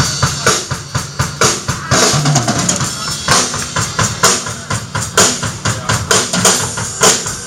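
Music with a driving drum kit: steady, regular bass-drum and snare hits.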